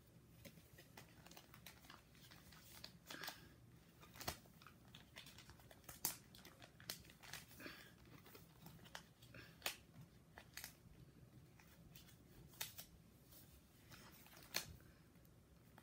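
Faint, irregular crinkling and clicking of clear plastic binder pocket pages as baseball cards are slid into them and the pages are handled.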